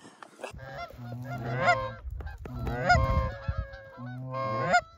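Canada geese honking: repeated loud honks, each breaking sharply upward in pitch, strongest about a second and a half in, at three seconds and just before the end, over a steady low drone.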